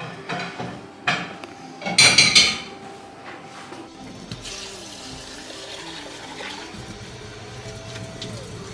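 A loud clatter of dishes about two seconds in. From about four seconds, tap water runs steadily into a bowl of black lentils as they are rinsed and stirred by hand in a stainless steel sink.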